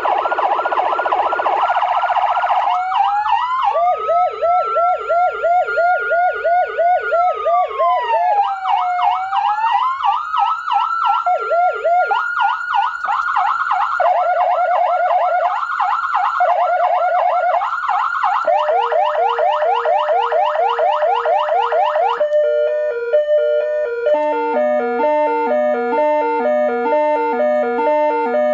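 SA830 400-watt electronic siren sounding through its speakers and cycling through its tones. It goes from fast warbling yelps to a slow wail that rises and falls, then back to fast yelps, and about three-quarters of the way through it switches to a stepped pattern that alternates between fixed pitches.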